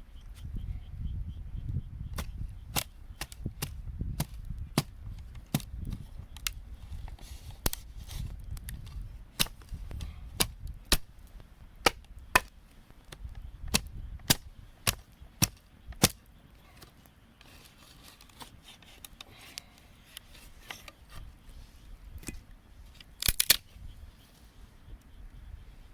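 Wood fire crackling: sharp, irregular pops, about one or two a second, over a low rumble. The pops thin out after about sixteen seconds, and a quick cluster of louder pops comes near the end.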